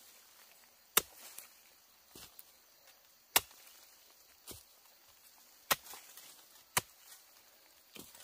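A digging tool chopping into the ground to dig out brown tubers: four loud, sharp strikes a second or two apart, with a couple of softer knocks between.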